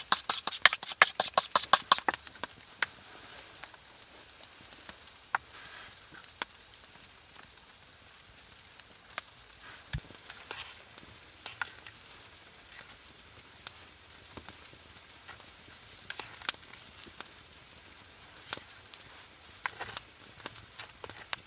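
Food cooking over a campfire: quick even stirring strokes, about six a second, stop about two seconds in, followed by a faint sizzle with scattered crackles and ticks.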